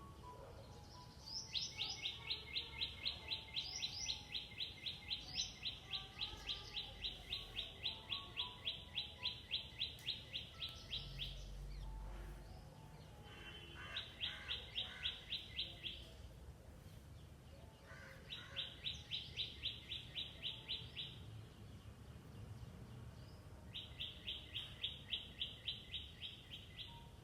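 A long series of rapid, evenly repeated high chirps, about five a second, comes in four bouts: a long run of about ten seconds, then three shorter ones. Fainter, higher chirps come in between.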